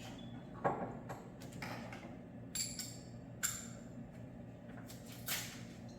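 Socket wrench and sockets clinking against metal as the tools are handled and fitted: about five separate clinks and knocks, two of them ringing briefly.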